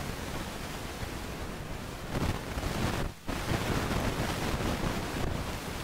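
Steady rushing noise of wind on the microphone, rising from about two seconds in and dropping out for a moment near the middle.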